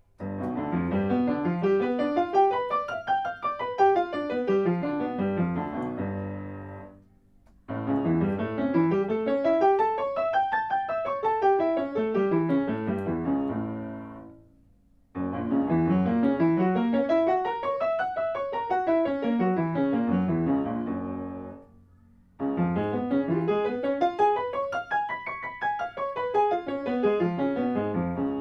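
Upright acoustic piano played with both hands: four scale exercises, each running up the keyboard and back down in about six seconds and ending on a held note, with a short break before the next.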